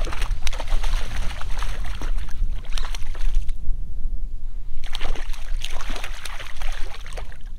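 Hooked trout thrashing and splashing at the water's surface beside a kayak, in two bouts of splashing with a short lull between, over a low rumble of wind on the microphone.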